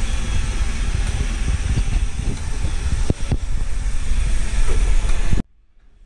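iRobot Roomba robot vacuum running on a tile floor, a steady whirring, brushing noise with a couple of knocks about three seconds in. It cuts off suddenly near the end.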